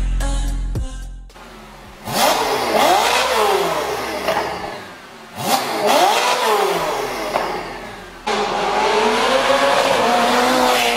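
Ferrari 488 GTB twin-turbo V8 breathing through an Fi Exhaust valvetronic system, revved twice. Each rev rises sharply and falls back. From about eight seconds in, the engine holds a steadier, higher note that wavers in pitch. Background music fades out in the first second or so.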